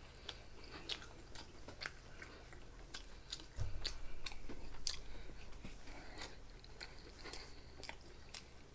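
Quiet, close-miked chewing and biting of a saucy barbecue chicken sloppy joe on a soft bun: scattered wet mouth clicks and smacks, with a low thump about three and a half seconds in.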